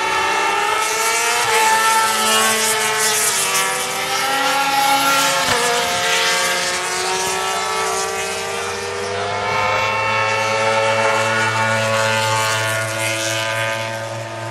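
Engines of several MotoGP racing motorcycles running at high revs on the circuit, their overlapping pitches sliding up and down as the bikes change gear and pass.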